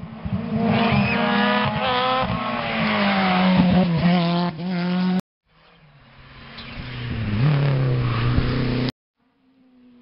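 Rally car engines at full throttle on a gravel-edged country stage. A car revs hard through gear changes and passes, its pitch falling. The sound cuts off abruptly about five seconds in. A second car then approaches and passes with a falling pitch, and it too cuts off suddenly near the end.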